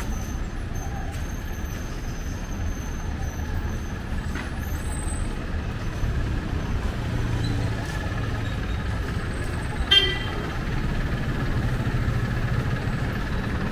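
Street traffic with vehicle engines running, and a brief horn toot about ten seconds in. A low engine hum grows stronger near the end as a jeepney comes up the street.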